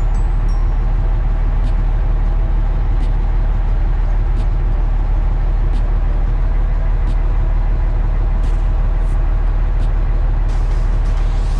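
A heavy harvest-machine engine running steadily, a constant low drone with a few faint clicks over it.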